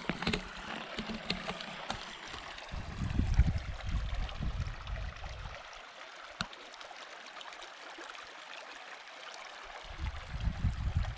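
A river or stream running, a steady rushing of water. A low rumble comes and goes over it, for a few seconds a little way in and again near the end.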